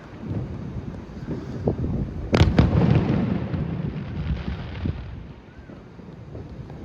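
Fireworks display going off: scattered low thuds, then a sharp loud bang about two and a half seconds in, followed closely by a second bang and a rumbling echo that dies away.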